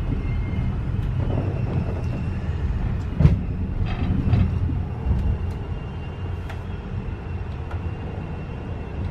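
Steady low rumble of a moving Rovos Rail passenger train heard from inside its carriage, with scattered clicks and knocks, the loudest about three seconds in.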